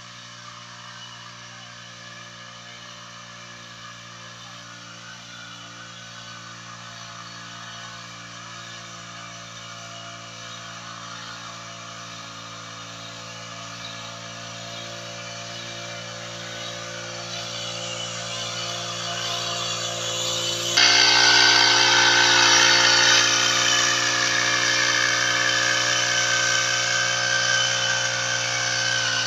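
Small engine of a motorized backpack crop sprayer running steadily. It grows louder as the sprayer comes closer, then turns abruptly much louder and hissier about twenty seconds in.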